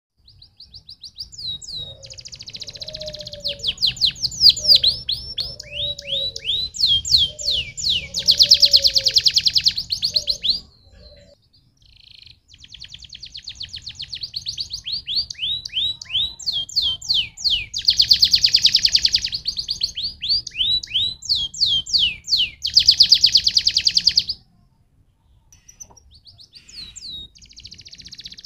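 Domestic canary singing in long phrases of fast falling whistles and rapid trills, broken by two short pauses.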